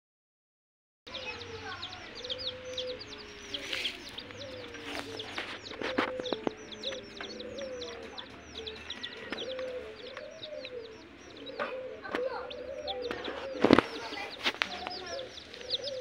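A group of domestic chicken chicks peeping constantly: many short, high chirps each second, with lower gliding calls underneath. It starts after about a second of silence, with a few sharp knocks, the loudest about three quarters of the way through.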